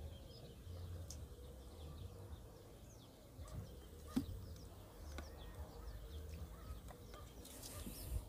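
Faint outdoor ambience of small birds chirping in scattered short calls over a low rumble, with one sharp click about four seconds in.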